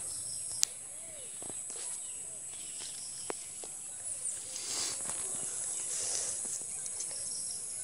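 Soft rustling and a few sharp clicks as sticks and weeds are handled on a mesh push net, over a steady high hiss.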